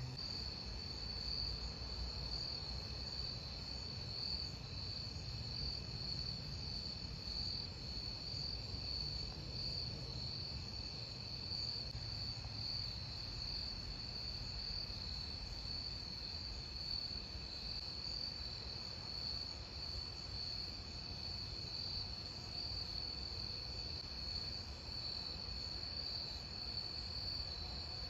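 Crickets chirring in a steady night chorus: one continuous high trill that never stops, with a faint low rumble underneath.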